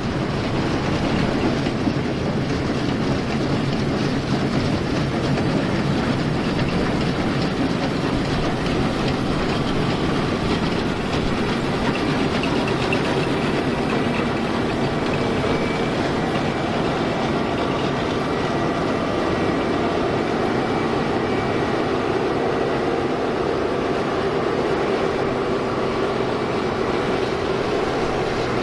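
International 1460 Axial-Flow combine running steadily while harvesting wheat. Its diesel engine, rotor and threshing and cleaning machinery blend into one dense mechanical rattle and hum.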